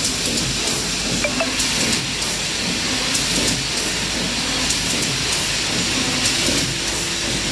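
GF 1600X corner-spout pouch sealing machine and its output conveyor running: a steady, fairly loud hissing machine noise with a few faint clicks.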